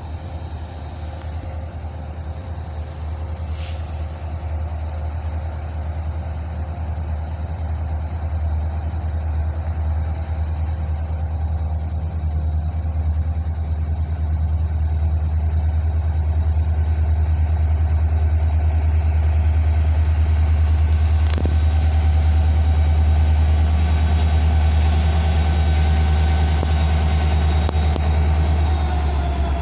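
Diesel locomotive engine rumbling, growing steadily louder as it draws near, with its tones dropping in pitch near the end.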